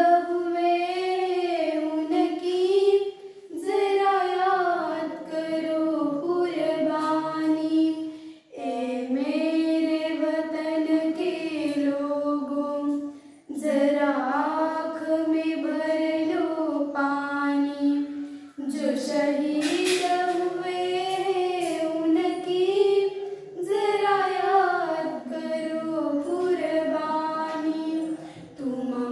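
Two young girls singing together without accompaniment, a held, gliding melody sung in phrases of about five seconds with short breaths between them.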